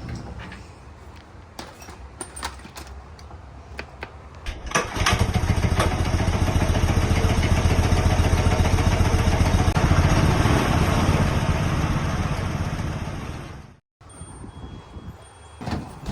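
A few light clicks and knocks, then a small engine starts about five seconds in and runs steadily at a constant speed before cutting off abruptly.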